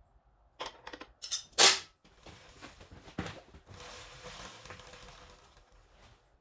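Handling noise at a motorcycle's rear wheel and drive chain: a few sharp metallic clanks and knocks, the loudest about a second and a half in, then several seconds of steady rustling.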